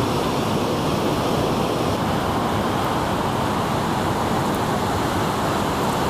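Steady rush of a tall waterfall and the stream tumbling over boulders below it.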